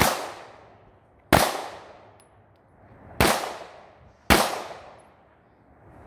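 Beretta 92 Inox 9mm pistol firing four single shots at an uneven pace, about one to two seconds apart, each shot followed by a short echo that trails away.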